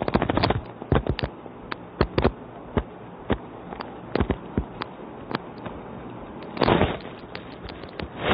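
Irregular sharp clicks and crackles, several a second, over a low hiss, with a short louder burst of noise about two-thirds of the way through.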